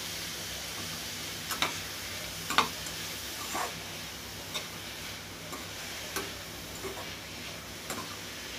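A spoon scraping and knocking against a steel kadai as grated carrot is stirred, with short sharp clicks about once a second, over a steady sizzle of the carrot frying in oil as it gives off its water.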